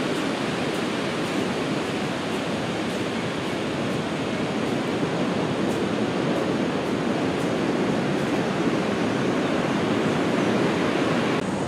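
Steady rushing wash of ocean surf breaking on the beach, with wind.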